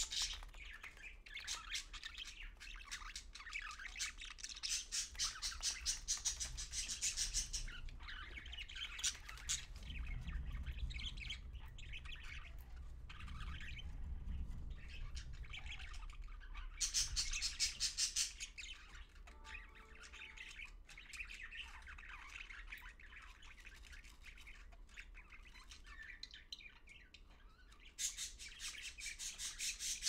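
Budgerigar chattering in bursts of rapid, scratchy clicking notes. The bursts are loudest at the start, briefly about midway, and again near the end, with softer chatter between.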